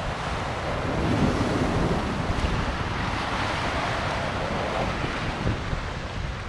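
Surf breaking on a rocky shore, mixed with wind buffeting the microphone; the wash swells about a second in.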